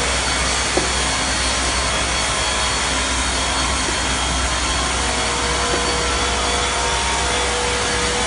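Steady running noise of an automatic bottle-labeling line: the slat conveyor and self-adhesive sticker labeler running together, with one sharp click a little under a second in.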